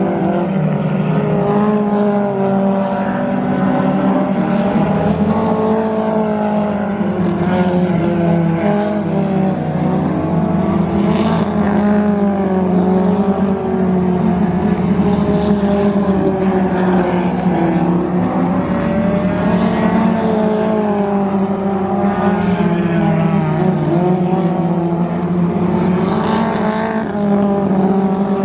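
A field of dirt-track stock cars racing together around a dirt oval, several engines running hard at once. Their pitch rises and falls as the cars lift and get back on the throttle through the turns.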